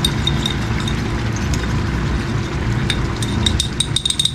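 Metal spoon clinking against a small cup as potato-starch slurry is stirred: scattered taps, then a quick run of clinks near the end, over a steady low hum.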